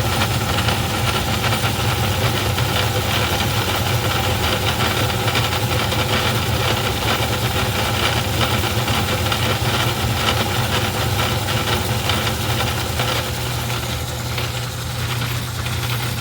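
Craftsman 109 metal lathe running with the cutting bit taking a cut in a steel part: a steady motor and drive hum with a busy mechanical rattle over it, easing slightly near the end.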